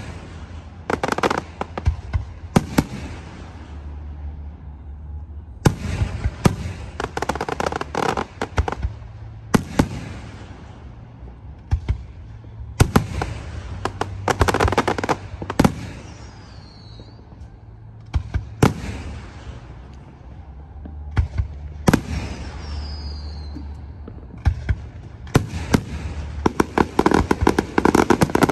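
Aerial fireworks shells bursting in clusters of sharp bangs followed by crackle, with two short falling whistles in the middle. The bangs come thick and fast near the end.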